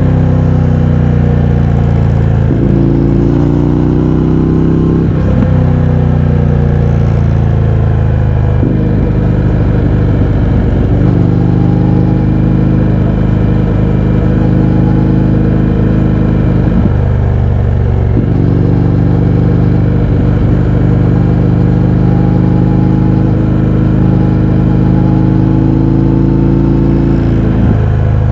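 Indian FTR 1200's V-twin engine, breathing through Akrapovic exhausts with the baffles removed, running under way. The engine note rises slowly and jumps in pitch several times as gears are changed.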